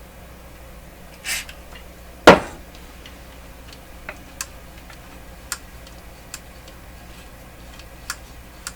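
A short burst from an aerosol spray can, then one loud knock, followed by scattered small clicks and taps.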